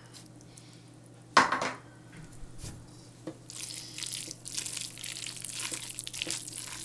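One sharp knock about a second and a half in. Then a wooden spoon stirs and mixes oily bibimbap rice and tuna in a large stainless steel bowl: a steady wet, crackly scraping from about halfway through.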